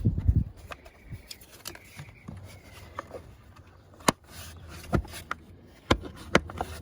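Scattered sharp clicks and knocks of plastic engine-bay parts being handled and clipped into place, with a low thump at the start and a handful of single clicks spaced about a second apart near the end.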